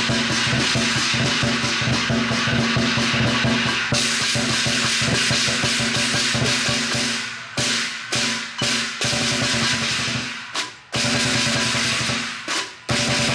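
Chinese lion dance percussion: drum with clashing cymbals playing a fast, continuous beat. About halfway through it breaks into separate accented hits with short pauses between them.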